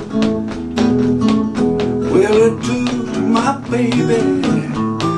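Acoustic guitar played in a rockabilly-blues rhythm, with a steady beat of picked and strummed notes.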